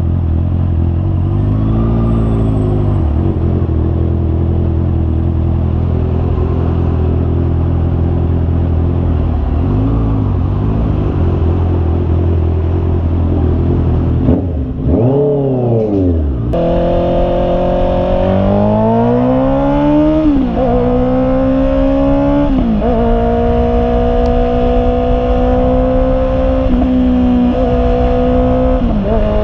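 Honda CB650R's inline-four engine idling with three quick throttle blips. Then the bike is ridden: the revs climb, drop sharply at two upshifts, and settle into a steady cruise.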